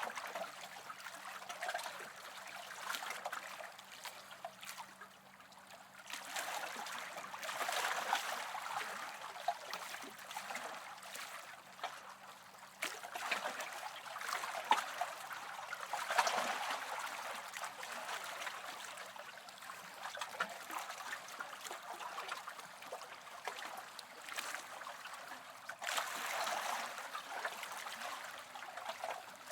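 Small waves lapping and washing on a shore: a continuous watery hiss and trickle that swells and falls back every several seconds.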